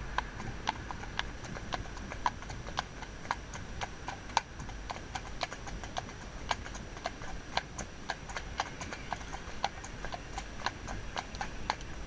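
A horse's hooves clip-clopping on a tarmac road, a steady run of sharp strikes at about two or three a second.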